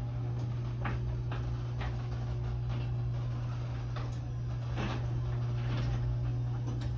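Chamberlain HD 800D belt-drive garage door opener running, its motor humming steadily as it moves the door, with light clicks and knocks from the door and rail.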